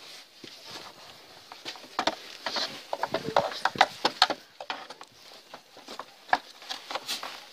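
Hands handling and wiping out the Opel Astra G's empty plastic air filter box: a run of quick plastic clicks, taps and rustles, densest from about two to four seconds in, then a single sharp click a little after six seconds in.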